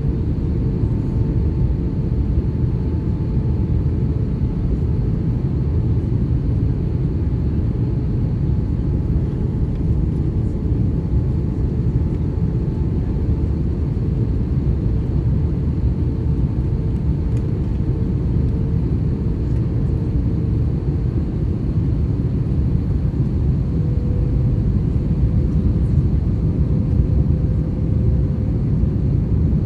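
Airbus A321 in flight, heard from inside the cabin: a steady low rumble of engines and airflow with a faint hum whose pitch steps up slightly near the end.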